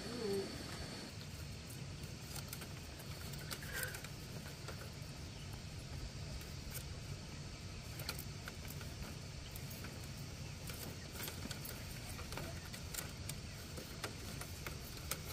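Split bamboo strips clicking and rattling against each other at irregular moments as a bamboo cage is woven by hand, over a steady low background rumble.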